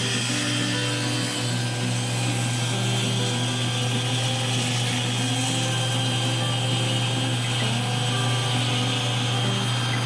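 Table saw running steadily with a constant motor hum as a softwood board is pushed through the blade.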